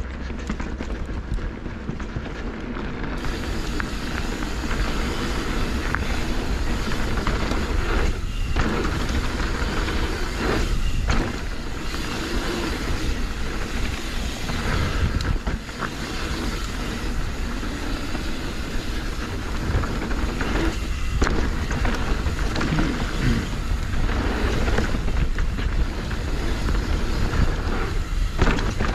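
YT Decoy electric mountain bike ridden downhill on a dirt trail: a steady rush of tyres on the ground and the bike's parts rattling over roots and bumps, with wind rumbling on the microphone. There are brief lulls every few seconds.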